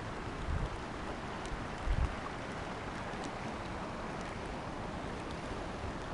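Campfire burning: a steady hiss of flames with a few sharp crackles from the wood. There are a couple of low thuds in the first two seconds.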